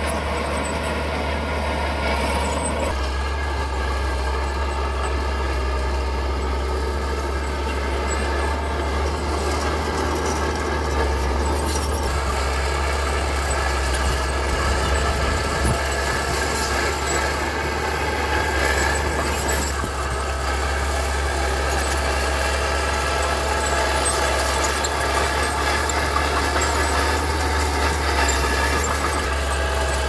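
Mini bulldozer's engine running steadily, with a high squeal carried over the low engine hum.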